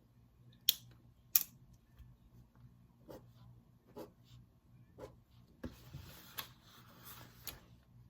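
Wood fire crackling: sharp, separate pops about once a second, the two loudest early on, with a soft hiss for about two seconds near the end.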